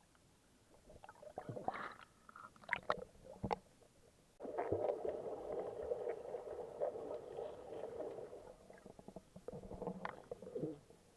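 Muffled, irregular splashing and gurgling of water with scattered knocks. A denser stretch of sloshing starts suddenly a little after four seconds in.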